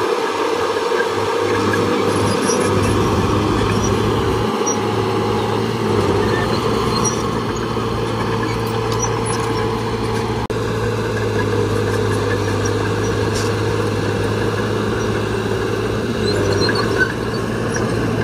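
Heavy diesel earthmoving machinery running steadily at a constant engine speed, with a short break in the sound about ten seconds in.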